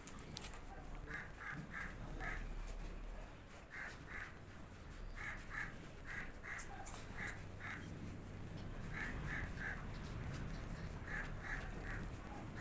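A bird calling over and over: short, fairly high calls in quick runs of two or three, the runs repeating every second or two.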